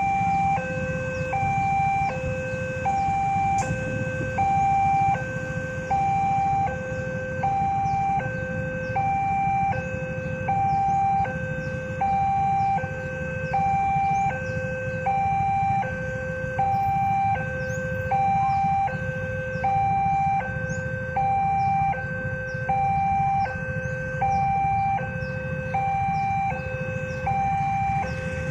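Railway level-crossing warning alarm sounding steadily while the barriers are down: an electronic two-tone signal alternating between a higher and a lower note, about one high-low cycle a second.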